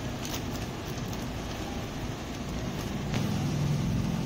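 Steady background road-traffic noise, with a vehicle's engine hum growing louder about three seconds in.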